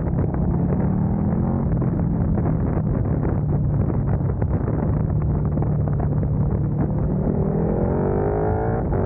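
KTM motorcycle engine running at a steady cruise under wind noise on the microphone. Near the end, after a downshift into second gear, the engine note climbs steadily as the revs rise.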